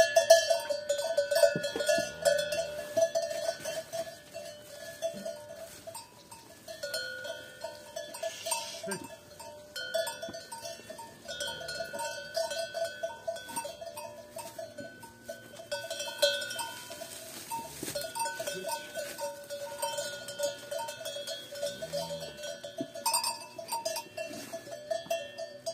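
A cowbell on a cow's collar clanking over and over, its ringing tone pulsing through the whole stretch.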